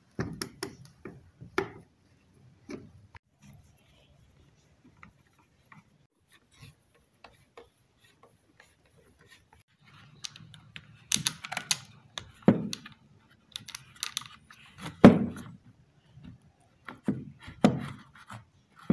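Scattered clicks, taps and knocks of a cordless drill's plastic housing, gearbox and screwdriver being handled as the drill is taken apart, with a louder knock about fifteen seconds in.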